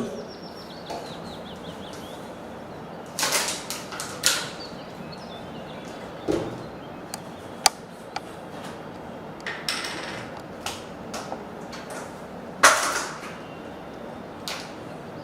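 Objects being handled and set down on a table for a demonstration: a few short scrapes and rustles and some sharp clicks, scattered with gaps between them.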